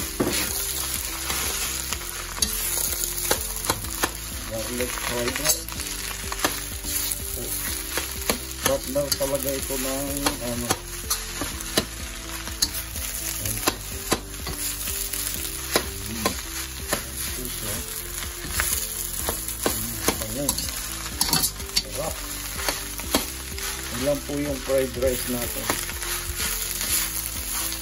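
Garlic fried rice sizzling in a hot pan while a metal spoon stirs and scrapes it, with frequent short clicks of the spoon against the pan.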